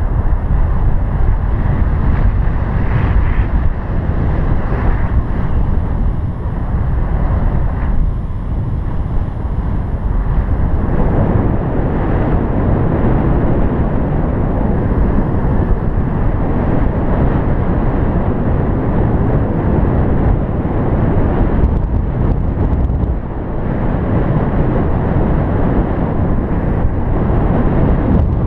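Wind noise from the airflow of paraglider flight rushing over the camera's microphone: a loud, steady low rumble with small swells.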